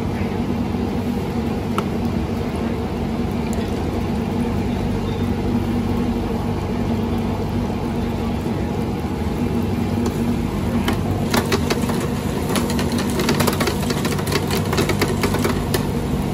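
A steady low mechanical hum, with catfish fillets frying in a propane deep fryer's hot oil, crackling and popping from about ten seconds in.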